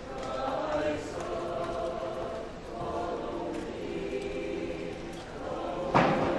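A choir singing held notes, with a single sharp knock near the end.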